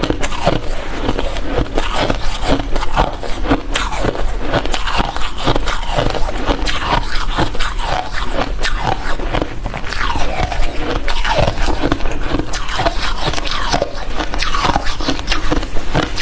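Soft ice being bitten and chewed close to the microphone: dense, continuous crunching and crackling, with short squeaks as the ice is compressed.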